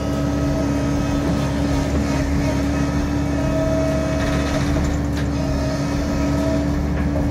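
Tracked excavator's diesel engine running steadily under load while it lifts tree trunks into a dump trailer, with a steady hum throughout.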